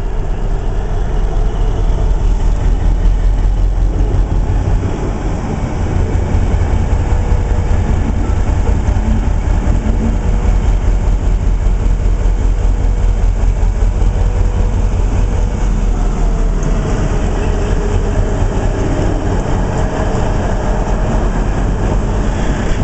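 A diesel-hauled test train passing close: the locomotive's heavy engine keeps up a loud, steady low rumble while the wheels clatter over the rail joints. The rumble swells about five seconds in as the locomotive comes alongside.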